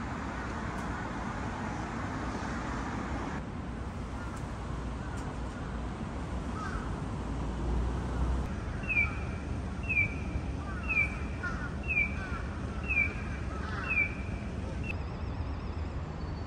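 Steady city street noise, with six short, high calls about a second apart in the latter half, each dropping quickly in pitch.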